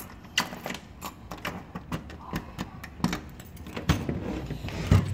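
Interior door being opened by its knob: metal knob and latch clicking in a run of small knocks, with two dull thumps near the end.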